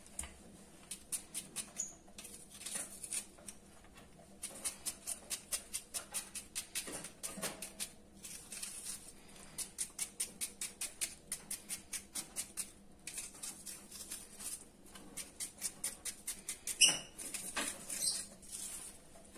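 Knife slicing an onion thinly on a cutting board: quick, even strokes, several a second, in runs with short pauses, and one louder knock near the end.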